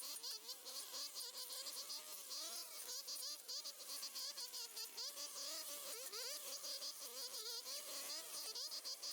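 Insects chirping in a fast, even pulsing rhythm, with a fainter wavering tone beneath.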